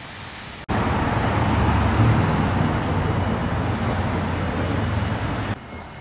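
Road traffic noise from a moving car: a steady rumble with hiss that cuts in abruptly less than a second in and drops away suddenly near the end.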